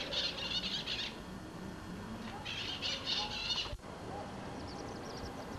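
Birds calling outdoors in short chattering bursts of rapid high notes, about a second each, with a brief dropout near the middle where the recording cuts.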